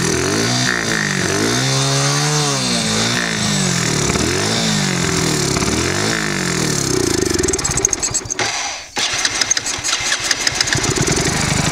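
Hero Splendor fuel-injected single-cylinder engine running while throttle body cleaner is sprayed into its intake, its pitch rising and falling about once a second as it is revved up and down. About three-quarters through it falters briefly and then runs unevenly, firing irregularly as it takes in the cleaner.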